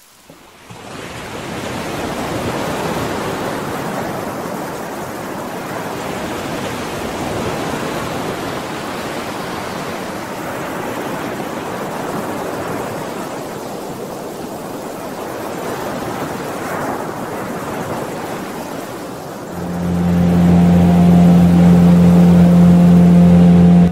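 Steady rush of rain and surf, swelling and easing gently. Near the end a loud steady low hum joins it and cuts off suddenly.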